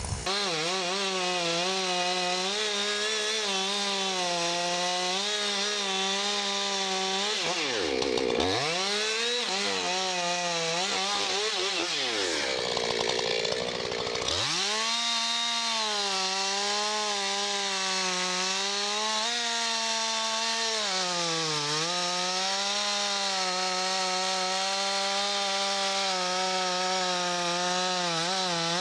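Chainsaw running at high revs, cutting into a hemlock trunk. The engine speed drops sharply and revs back up about 8 seconds in and again around 12 to 14 seconds.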